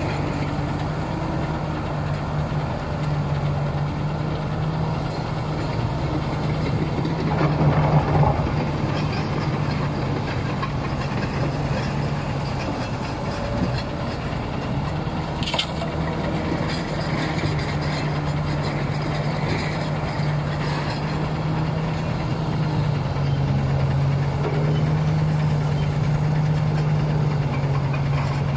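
Heavy diesel engines of a Komatsu PC330 excavator and a Kamaz dump truck running steadily while the excavator digs and tips dirty snow and rubble. A louder rush of falling material comes about eight seconds in, and a single sharp clank about halfway through.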